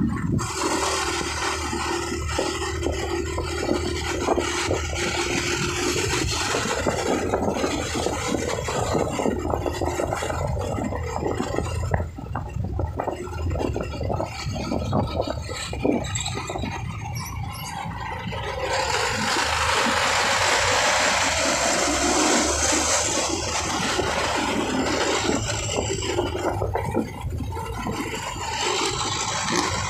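Wind rushing and buffeting on the microphone of a phone mounted on a moving motor scooter, over road noise and the low run of the scooter's engine. The rushing noise grows louder for a few seconds past the middle.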